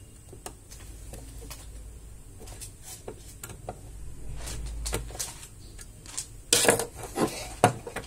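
Wires and a small relay module being handled on a desk: scattered light clicks and rustles, then a few louder knocks and scrapes near the end as the parts are set down and moved.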